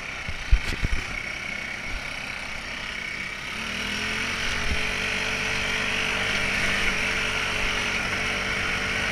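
Off-road buggy engine running, with a few sharp knocks in the first second. About three and a half seconds in, the engine note grows louder, rises slightly and holds steady.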